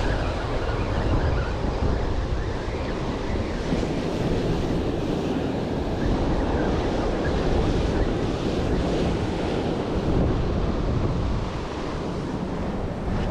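Ocean surf washing onto the beach, with wind buffeting the microphone.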